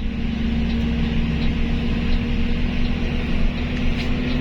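Steady engine drone and road rumble inside the cab of a heavy vehicle cruising on a highway; the engine tone edges slightly higher near the end.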